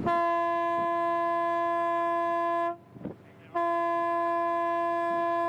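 Ship's horn sounded as a greeting between two passing vessels: two long, steady blasts on one pitch, the first breaking off a little before halfway through and the second starting about a second later.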